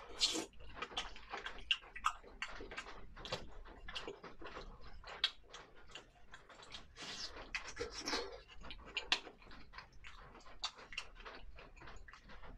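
Close-miked eating sounds: irregular wet chewing, lip smacks and small mouth clicks as tender fish fillet and rice are eaten.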